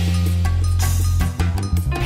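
Background music with a drum beat and a heavy bass line.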